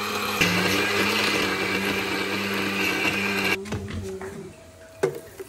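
Countertop blender running steadily as it purées strawberries and sugar into juice, the motor's hum under a loud whirring, then switching off suddenly about three and a half seconds in; a knock follows near the end.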